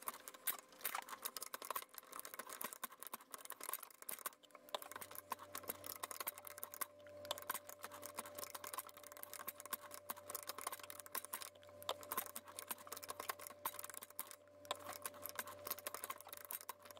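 Ratchet handle and die head of a Ridgid 12-R hand pipe threader clicking densely as the dies cut threads on 1-inch black iron pipe, sped up. A faint steady hum joins about five seconds in.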